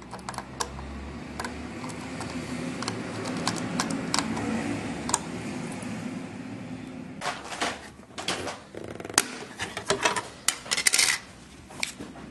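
Plastic clicks and taps from fingers working the trail camera's SIM and card slots and battery compartment. Sparse single clicks give way about seven seconds in to a busier, louder clatter of handling that lasts about four seconds.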